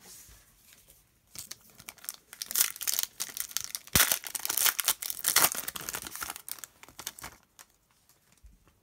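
Foil wrapper of a Panini Excalibur basketball card pack being torn open and crinkled by hand: a dense crackling that starts about a second in and stops a second or so before the end, with one sharp snap midway.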